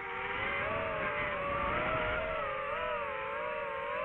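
DJI FPV drone's motors and propellers whining, the pitch dipping and rising again and again with the throttle.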